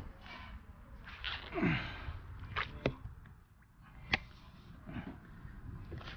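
Scattered handling noises: a few sharp clicks and knocks, and a brief falling swish about a second and a half in.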